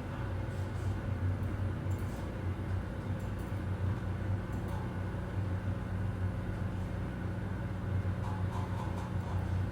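Office ambience: a steady low air-conditioning hum with faint scattered clicks. A second, slightly higher hum joins about a third of the way in.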